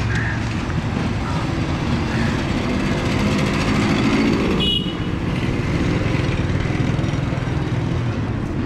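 Busy road traffic running steadily, with the engines of passing vehicles, and a brief high, clear tone about halfway through.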